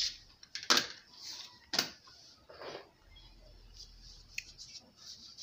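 Two sharp knocks of a long knife blade on a granite worktop as it cuts through a slab of dough, followed by soft rubbing and faint ticks as flour is spread across the stone by hand.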